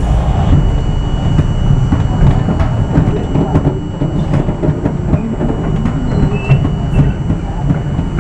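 R42 New York City subway car running on elevated track: a steady heavy rumble of steel wheels on rail, with frequent irregular clicks as the wheels cross rail joints and switches.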